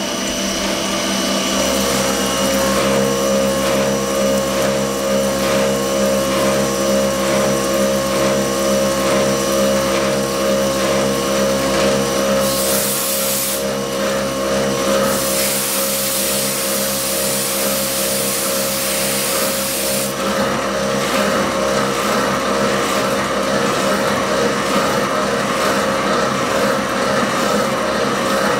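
Haas TM-1 CNC mill running steadily, its spindle whining as an end mill cuts aluminum under flood coolant. A higher hiss joins briefly about twelve seconds in and again for about five seconds in the middle.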